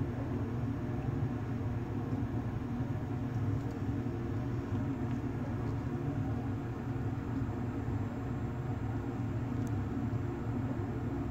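Steady low mechanical hum, even and unchanging.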